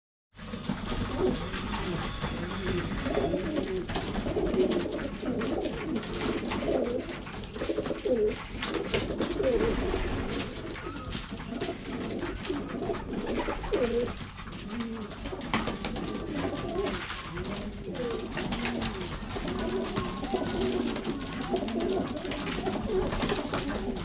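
A flock of racing pigeons cooing continuously, many voices overlapping, with scattered sharp clicks of beaks pecking grain off the floor.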